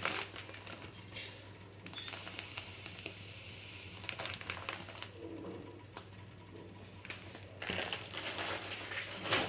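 Dry semolina being roasted in a pan and stirred with a spatula: irregular scraping and rustling with scattered sharper clicks.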